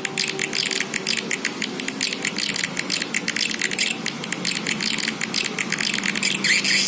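Recorded calls of edible-nest swiftlets played as a swiftlet-house lure: a dense stream of rapid clicks and chirping twitters.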